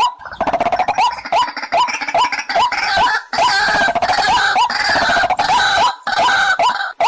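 White-breasted waterhen calling: a steady run of short repeated notes, about three a second, overlaid for most of the time by a dense, harsh chorus of croaking calls that breaks off briefly twice.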